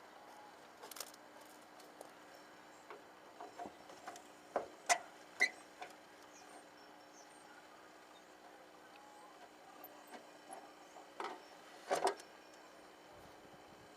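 Scattered clicks and light knocks of hands working loose the ignition switch and its wiring, with a cluster of sharp ones about four to five seconds in and another pair near the end, over a faint steady hum.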